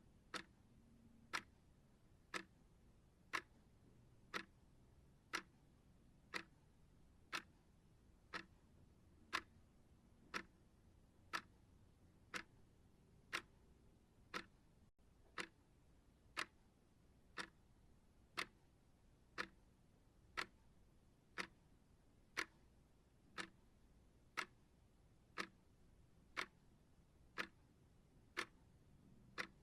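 Clock ticking steadily, one short sharp tick about every second.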